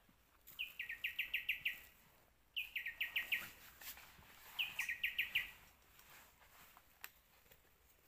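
Three quick runs of high chirping notes, each run of about six to eight notes stepping down slightly in pitch, a second or two apart.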